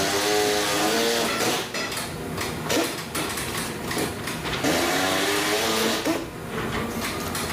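A handheld power tool running in two bursts of about a second each, its motor whine rising slightly as it spins up, with scattered knocks in between.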